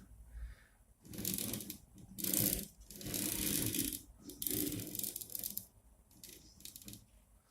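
Handling noise of printer-kit parts: several bursts of rattling and rustling, with a few sharp clicks near the end, as the timing belt is worked into the X carriage.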